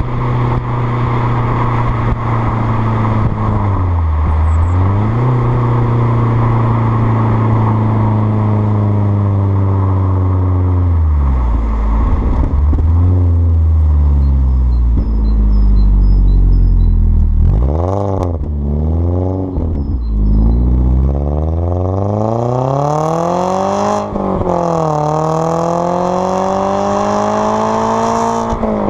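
Alfa Romeo Brera S 2.2's four-cylinder engine heard right at its tailpipes through a stainless steel cat-back exhaust with the centre silencer removed, while driving. The note holds steady at first, rises and falls quickly several times in the middle, then climbs in pitch under acceleration, dropping sharply at upshifts about two-thirds through and again at the very end, with road and wind rush growing as it pulls.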